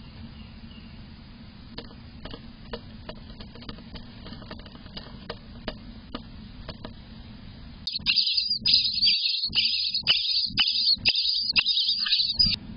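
Eastern bluebird nestlings in a nest box: faint scratches and clicks over a low hum at first, then about eight seconds in a loud chorus of high, raspy begging calls in broken bursts, which cuts off abruptly near the end.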